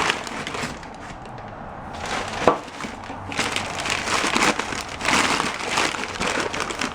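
Wrapping crinkling and rustling in waves as wrapped cups are handled in a box, with a sharp knock about two and a half seconds in.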